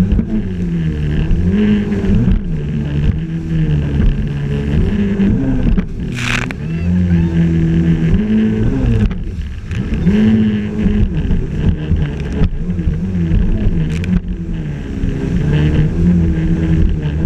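Yamaha jet ski's engine running at speed, its pitch rising and falling repeatedly, over water rushing past the hull. A brief loud splash about six seconds in.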